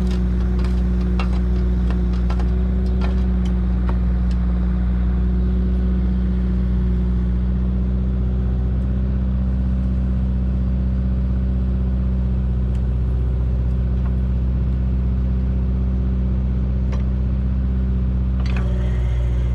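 Engine of a pile-hole auger rig running steadily at constant speed, with scattered clicks and knocks in the first few seconds.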